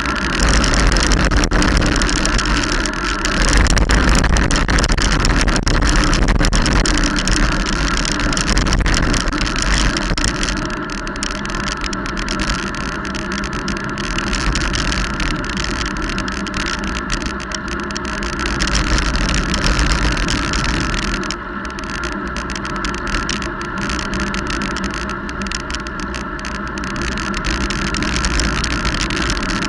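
Wind rushing over a moving camera's microphone, with tyre noise on a wet road, during a fast descent. It is louder for the first ten seconds or so, then eases somewhat.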